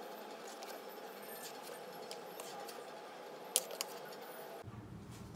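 Faint room tone with a couple of sharp clicks about three and a half seconds in: a serving ladle knocking against a ceramic bowl while curry is ladled into it.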